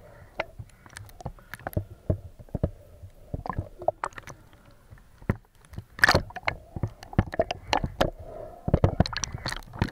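Water splashing and sloshing, with many sharp, irregular knocks and clicks; the loudest comes about six seconds in.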